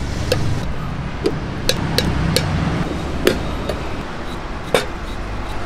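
Steel spoon knocking and clinking against a steel mug while chaat is stirred in it: scattered sharp knocks, several a few seconds apart, over a low, steady street rumble.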